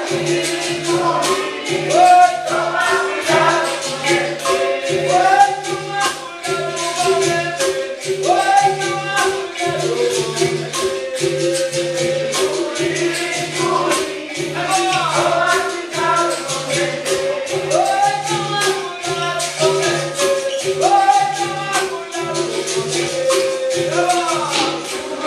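Capoeira roda music: berimbau, pandeiros and atabaque drum in a steady rhythm with handclaps, and a group singing over it.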